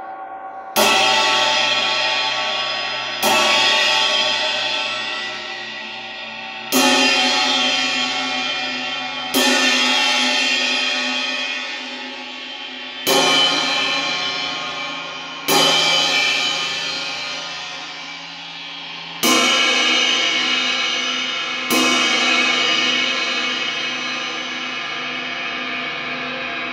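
Paiste Sound Creation bell ride cymbals struck one at a time with a drumstick: eight strikes in four pairs, each left to ring out and slowly fade.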